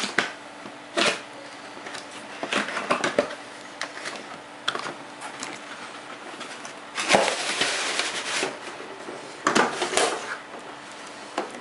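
Cardboard motherboard box being opened and handled: irregular clicks and taps of the packaging, with a longer scraping rustle about seven seconds in and another shorter one near the ten-second mark.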